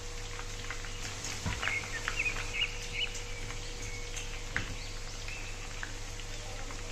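Chopped onions frying in hot oil in a pan, a light crackle with scattered pops, under a steady low hum. Birds chirp in the background from about a second and a half in until about three and a half seconds in.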